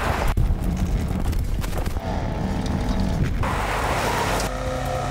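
Range Rover Sport's engine running as the SUV drives down a forest track, a steady low rumble with a drone over it; the sound changes abruptly a few times.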